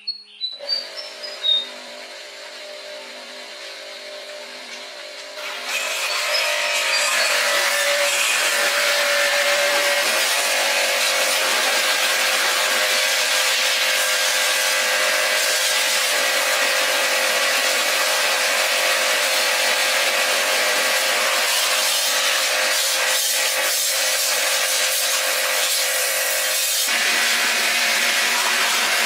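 A power tool working steadily on material, a continuous hissing, rasping sound that swells to full strength about five seconds in, after a few quieter clicks and handling noises.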